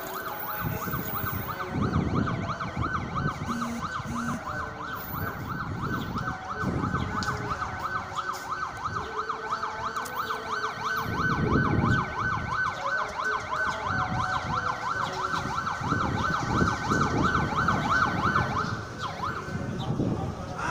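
Electronic warbling siren: a fast, even up-and-down wail repeating several times a second, holding steady and stopping just before the end, over a low rumbling background.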